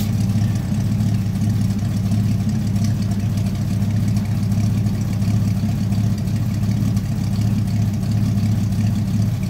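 Old Ford pickup truck idling at its tailpipe, a steady low exhaust note that does not change, the engine still warming up after a cold start.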